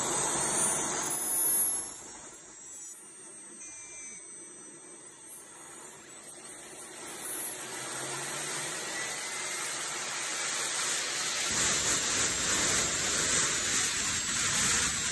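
Linton 80N model jet turbine spooling up on restart: a high-pitched whine rising in pitch over a steady rushing hiss as it accelerates toward running speed. The sound drops briefly about six seconds in, then builds again and settles into a steady run.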